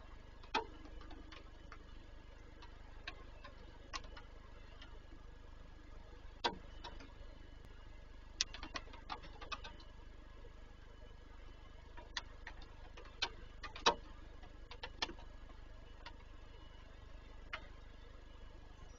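Irregular sharp ticks and taps of raindrops hitting the nest box, some louder than others, over a low steady hum.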